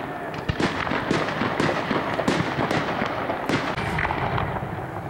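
Aerial fireworks display: a rapid, dense run of bangs and crackling bursts, overlapping one another.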